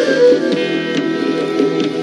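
Background music with plucked guitar notes.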